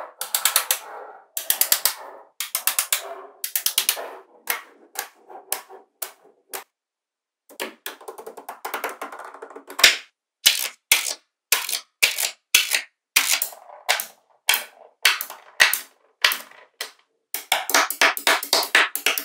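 Small magnetic balls clicking and snapping against each other, in quick clusters of sharp clicks with brief rattles, pausing for about a second partway through.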